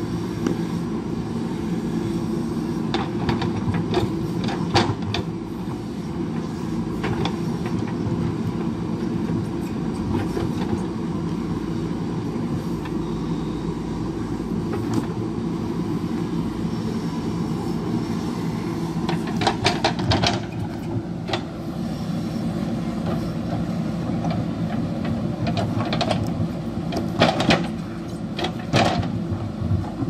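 JCB backhoe loader's diesel engine running steadily while the backhoe digs and dumps earth, with bursts of clanks and rattles from the bucket and stones, heaviest about two-thirds of the way through and near the end.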